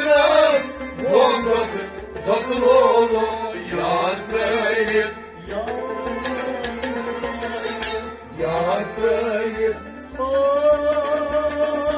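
Kashmiri Sufi devotional song: male voices sing a melody to harmonium and rabab accompaniment. About ten seconds in, the music settles on a long held note.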